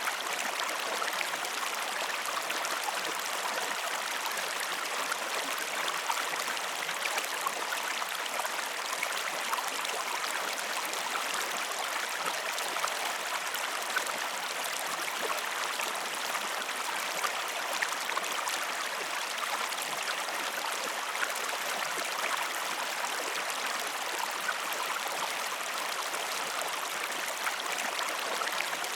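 Steady rush of a flowing river or stream, with small splashes and drips scattered through.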